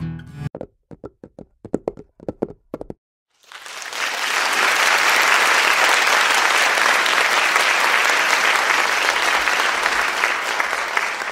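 A few brief, sharp sounds, then applause that starts about three and a half seconds in and carries on steadily.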